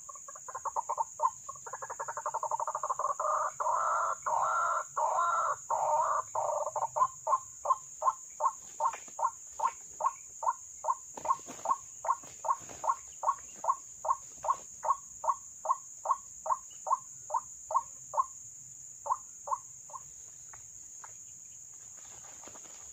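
White-breasted waterhen calling. A quick run of calls leads into a dense gurgling chorus, then single croaking notes about two a second that thin out and stop a few seconds before the end. A steady high insect buzz runs underneath.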